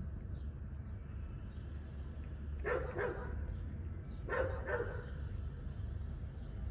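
A dog barking: two short double barks about a second and a half apart.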